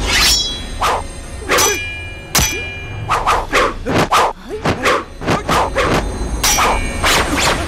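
Staged kung-fu fight sound effects: punch and kick whacks. A few spaced hits, some of them ringing briefly, then a faster flurry of blows from about three seconds in.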